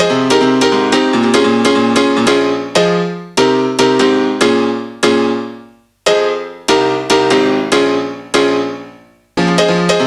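Background music played on piano or electric piano: a rhythmic chordal passage that breaks into single struck chords left to ring and fade, with two short gaps, then picks the rhythm up again near the end.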